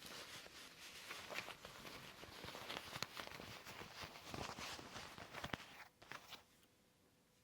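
Leather gloves handled close to the microphone: a dense, crinkly rustle with many small clicks and taps, stopping about six seconds in.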